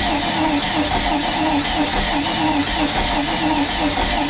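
Crusader 454 big-block V8 marine engine being cranked over by its starter, with spark and fuel disabled, an even rhythmic chugging of a no-fire compression test. The cylinder under test reads about 80 PSI, too low to fire, in an engine that has been flooded with water.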